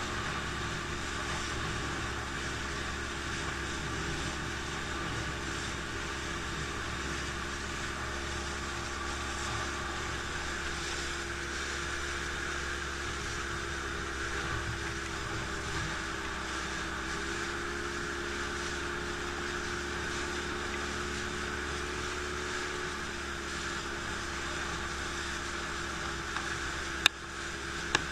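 A motor running steadily at an even pitch, a low hum with a higher whine over a rushing haze, and a sharp click near the end.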